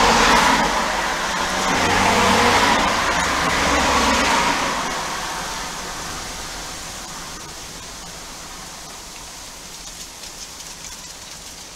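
A car drives past, its tyre noise swelling and then fading away over the first five seconds or so. After that, a softer steady hiss of rain with faint scattered ticks of drops.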